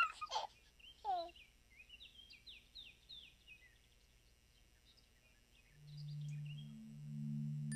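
Birdsong: a couple of falling whistled calls in the first second or so, then a run of quick high chirps for about two seconds. About six seconds in, a low held musical note fades in and swells.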